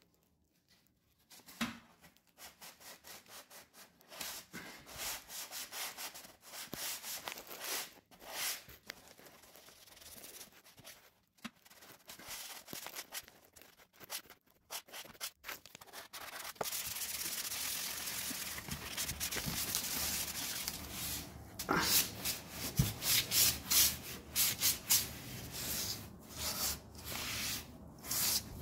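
Repeated back-and-forth rubbing strokes on wood, broken by short pauses. Past the middle it becomes a denser, steadier rubbing for several seconds, and then the separate strokes return.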